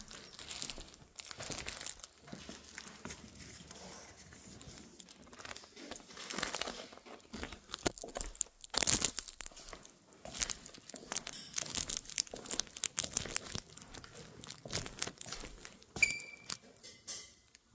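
Rustling and scraping of a phone rubbing against clothing as it is carried, with soft sneaker footsteps on a tiled floor and irregular handling clicks.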